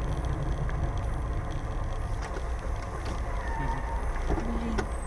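Steady low rumble of engine and road noise inside a moving car, recorded by a dashcam microphone, with a couple of faint clicks.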